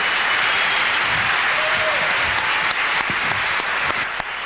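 Audience applauding, a dense steady wash of clapping that thins into scattered individual claps near the end, with a few cheers in it.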